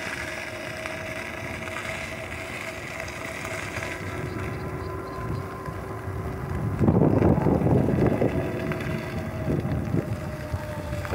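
RadRunner electric bike's geared rear hub motor whining steadily under power while riding on pavement. About seven seconds in, wind buffeting on the microphone grows loud and covers it.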